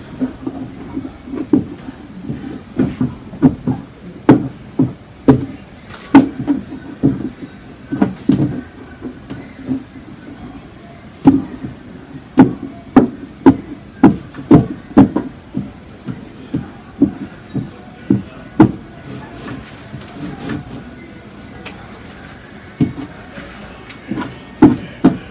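A hand tool knocking and scraping against a cradled panel as lines are scratched into textured cold wax: many sharp, irregular taps, at times about two a second, thinning out about three-quarters of the way through.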